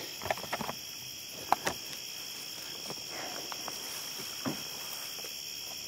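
Crickets chirping in a steady chorus, with a few short scattered clicks and rustles, mostly in the first two seconds.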